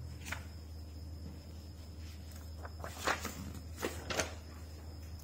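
A few short rustles and scrapes of a sheet of paper being handled, the loudest about three and four seconds in, over a steady low hum.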